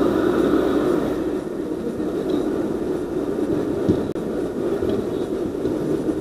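Steady low outdoor rumble, a little louder in the first second, with a single soft thud about four seconds in.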